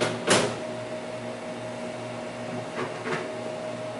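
Steady hum of the running Xerox Alto and its Diablo disk drive, with a held tone. About a third of a second in comes a sharp knock as the keyboard is handled to press the reset button, followed by two fainter clicks near the end as the machine reboots.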